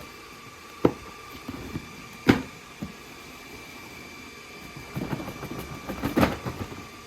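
Cardboard box and packaging being handled: a few sharp knocks and taps, the loudest about two seconds in, then a run of scraping and rustling near the end.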